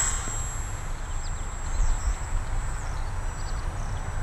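Wind buffeting the microphone with a steady low rumble and a few faint bird chirps. Right at the start, the high whine of a small electric RC plane trails off as it flies past and away.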